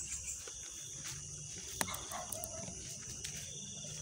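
Steady high-pitched chorus of insects such as crickets, with one sharp click a little under two seconds in.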